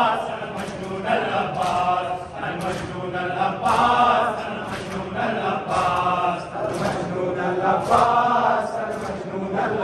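Men chanting a Muharram noha (lament) together, with rhythmic hand-on-chest beating of matam about once a second.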